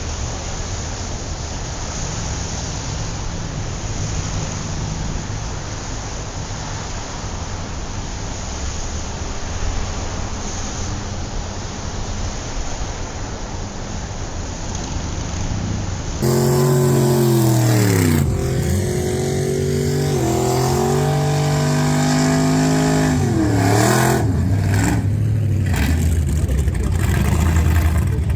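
Gasser hot-rod engines. For about sixteen seconds one engine rumbles steadily under a wash of noise. Then a louder engine revs up and down, its pitch dropping and climbing again with the throttle.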